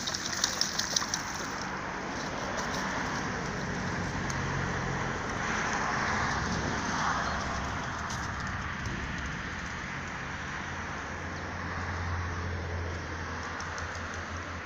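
A dog splashing as it paddles in shallow river water, sharp splashes over the first second or so. Then a steady rushing noise that swells and fades about halfway through.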